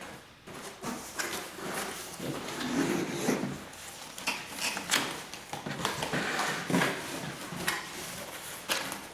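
Irregular clicks, knocks and rustling of things being handled and unpacked, with several sharper knocks spread through.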